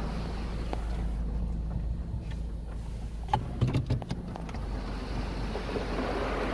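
Ryko Radius HT touchless car wash spraying high-pressure water onto the car, heard from inside the cabin over a steady low hum. The spray thins out in the middle and returns near the end. A few sharp knocks come about three and a half to four and a half seconds in.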